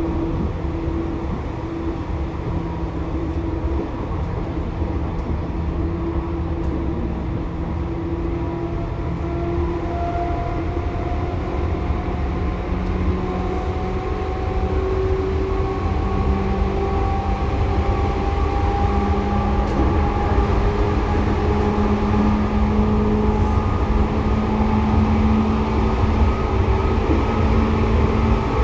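Seibu 2000-series electric train running, heard from inside the car: a steady low rumble of wheels on rails, with several whining tones from the motors and gears that slowly rise in pitch as the train picks up speed, growing slightly louder.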